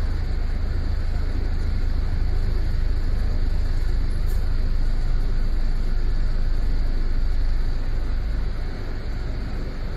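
A double-decker bus running, heard from inside on the upper deck: a steady low engine and road rumble with a haze of traffic noise, which eases off a little about eight seconds in.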